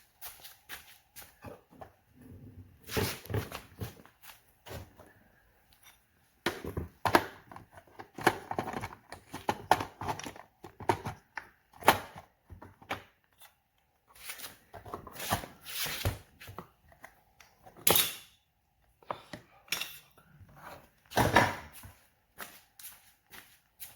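Irregular clatter, knocks and scraping of hard objects being handled, in uneven bursts with short pauses between them.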